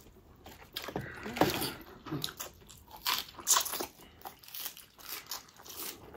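Close-up eating sounds: instant noodles being slurped and chewed, with irregular crisp bites and mouth clicks.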